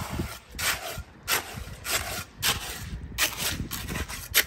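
Hand trowel scraping and turning wet concrete mix, in repeated short strokes about one every half second.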